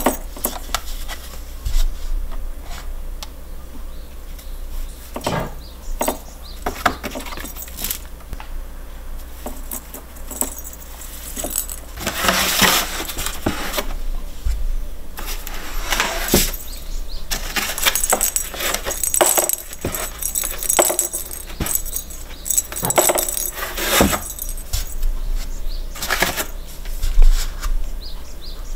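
Cats playing with a cardboard scratcher ball toy: balls knocked clicking and rattling around the track, irregular, with stretches of claws scraping across the cardboard.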